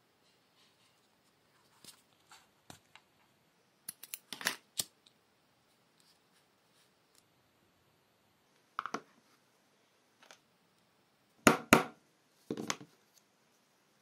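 Scattered short clicks and scratches from hand leatherwork: needles and thread worked through a small leather loop, then a metal ring buckle handled as it is fitted to the belt. The loudest is a pair of sharp clicks about three quarters of the way through.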